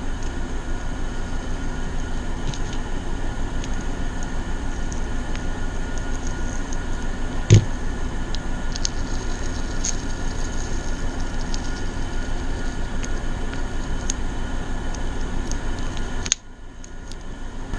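Steady hum of two room air conditioners running, with a fast, even flutter. A few faint ticks of handling are heard, with one sharp knock about seven and a half seconds in. Near the end the hum drops away suddenly, then builds back.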